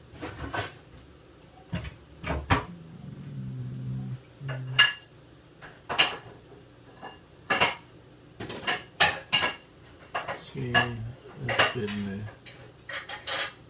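Hard objects clinking and clattering irregularly, about a dozen sharp strikes, some ringing briefly.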